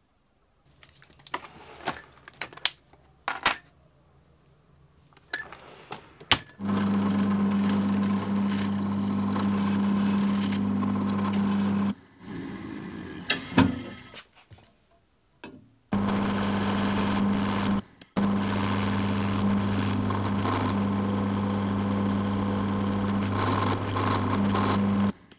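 Small metal parts clicking and rattling in a plastic organizer box for a few seconds. Then a drill press runs with a steady low hum while a twist bit drills into an aluminum block held in a machine vise. It runs in two long stretches with a quieter pause between them.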